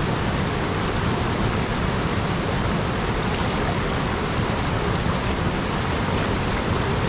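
Fast mountain river rushing over rocks and rapids, a steady rush of water with no let-up.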